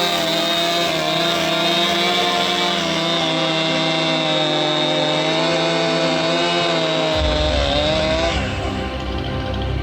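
Chainsaw engine running at high revs, its pitch wandering slightly, then stopping about eight seconds in.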